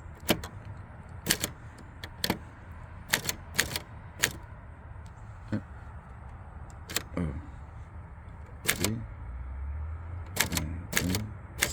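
Olivetti Studio 45 manual typewriter being typed on slowly, one key at a time: sharp type-bar strikes at uneven spacing with a few pauses, about fifteen in all.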